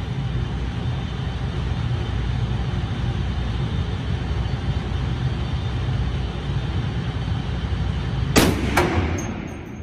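Steady low rumble, then about eight seconds in a single loud shot from a Barrett M82A1 .50 BMG semi-automatic rifle. A second sharp crack follows a split second later, and the sound rings away.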